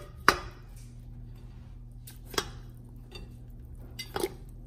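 Cones of piloncillo knocking against the bottom of a stainless steel pot of water as they are dropped in by hand: three knocks, the loudest just after the start, the others in the middle and near the end, over a steady low hum.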